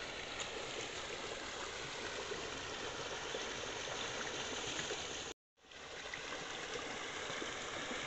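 Water flowing fast down a narrow stone-lined channel, a steady rushing sound; it cuts out for a moment about five and a half seconds in.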